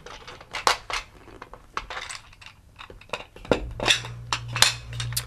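Irregular light clicks and clinks, a dozen or so, as small pieces of the Montessori racks-and-tubes division material are picked out of their tray and set down on the wooden board.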